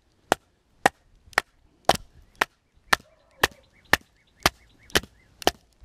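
A fixed-blade knife being batoned through a knotty piece of wood: sharp knocks on the blade's spine drive it into the log. There are about two knocks a second, eleven in all, evenly spaced.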